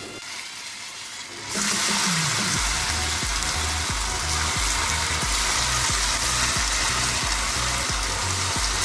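Cubes of idli deep-frying in hot oil, a steady sizzle that gets louder about a second and a half in. Background music with a steady low beat comes in under it.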